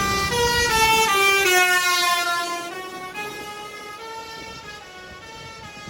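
Bus telolet horn, a multi-tone musical air horn, playing a quick melody of stepped notes that grows fainter after about two seconds as the bus draws away.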